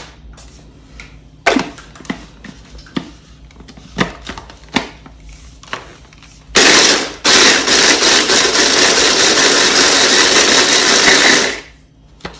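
Scattered sharp snaps and clicks as Oreo cookies are broken by hand. Then an electric chopper runs in a short pulse and a steady run of about four seconds, chopping Oreos into coarse crumbs, and cuts off sharply.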